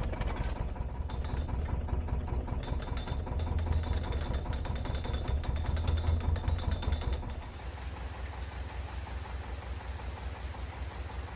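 Narrowboat's diesel engine idling with a steady, even knocking chug. It drops in level about seven seconds in.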